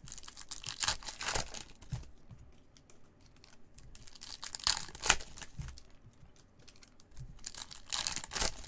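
Trading-card pack wrappers crinkling and tearing as gloved hands open them, in three bouts of rustling.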